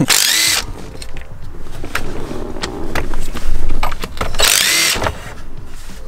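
DeWalt 20V cordless drill-driver spinning out the bolts that hold a Ford Mustang's stock shifter, in two short whirring bursts: one at the start and one about four and a half seconds in.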